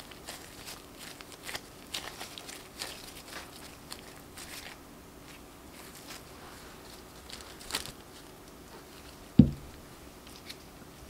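Disposable plastic gloves crinkling and soft scone dough being squeezed and pressed by hand, in scattered light crackles and clicks. A single dull thump near the end.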